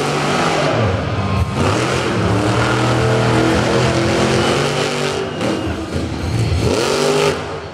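Wild Side monster truck's engine revving hard. The revs dip and climb back near the start, hold high through the middle, and dip and climb again near the end.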